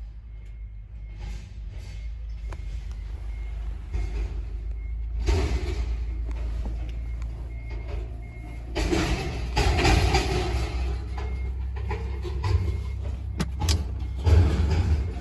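Heavy vehicle engine rumbling, with a reversing alarm beeping steadily about twice a second for the first few seconds. Louder rough noise swells in from about five seconds in.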